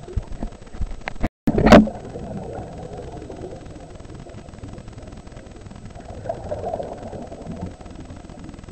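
Muffled underwater sound picked up by a GoPro-type action camera: a steady low rush with a few knocks in the first second, a brief dropout, then a short loud burst. A softer swell of rushing sound comes about six seconds in.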